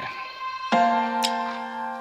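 Background music: soft, sustained keyboard chords that change about two-thirds of a second in, with a light tick roughly once a second.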